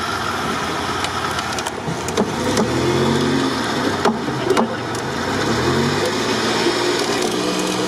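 Off-road 4x4 engines running under load during a recovery pull, the revs rising and falling a couple of times, with a few short knocks.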